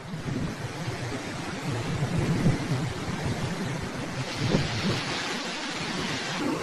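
Hurricane wind and driving rain blowing hard, a steady noisy rush with rumbling gusts. A higher hiss strengthens about four seconds in.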